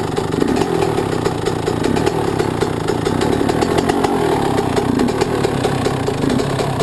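Yamaha YZ125 two-stroke single-cylinder engine running steadily on its first start after a rebuild with a new Wiseco piston. It is carrying a lot of oil, so it doesn't want to settle to an idle.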